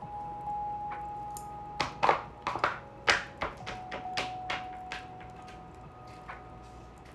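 Hands working at something hard to open: a quick run of sharp cracks, clicks and taps, thickest about two to three seconds in and dying away by about five seconds.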